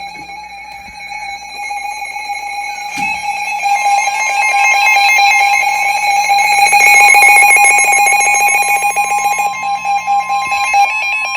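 Emergency alert attention tone: a loud, steady electronic tone, with a second, slightly higher tone joining about four seconds in and a rapid fluttering through the middle. It signals that a new warning broadcast is about to follow.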